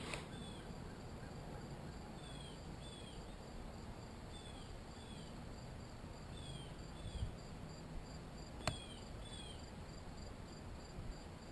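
Faint outdoor insect chorus, crickets among them, with short high falling chirps that mostly come in pairs. A single sharp click comes about nine seconds in.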